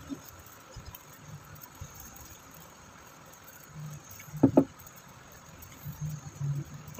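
Two quick slurping sips from a coffee mug about halfway through, the loudest sounds, over faint room noise. A low hum comes and goes and builds near the end.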